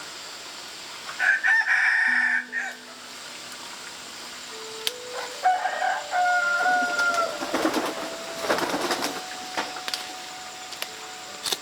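Rooster crowing: a shorter loud call early, then a long drawn-out crow about five seconds in that drops in pitch at its end. Soft background music with slow single notes plays underneath.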